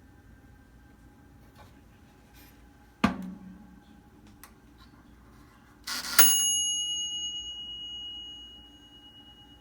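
A sharp knock, then a clack and a single bell ding that rings on and fades slowly over a few seconds: a toaster oven's timer bell going off as the timer runs out.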